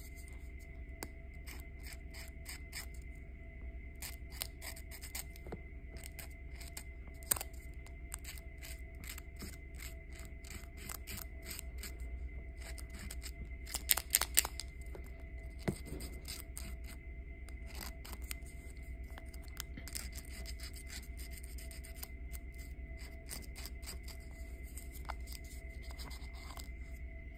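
A small folded paper booklet handled and pressed in the fingers: scattered light clicks and paper crinkles, with a louder cluster of clicks about halfway through. A steady faint high tone runs underneath.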